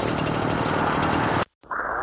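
Steady engine noise with a strong hiss, which cuts off suddenly about a second and a half in; after a brief silence, music starts with rising slides.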